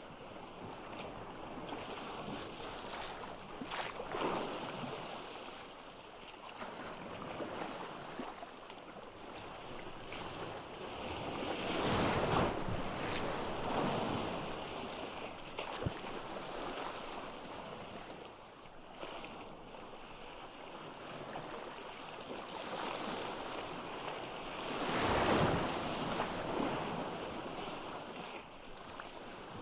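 Ocean waves breaking on a beach: a steady wash of surf that swells into two larger breakers, about twelve and twenty-five seconds in, the second the loudest.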